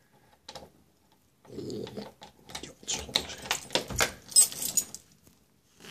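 Close rustling, scratching and clicking as a cat moves about on a person's shoulder right beside the phone, its fur and paws brushing clothing and the microphone. It starts about a second and a half in, is loudest about four seconds in, and dies away near the end.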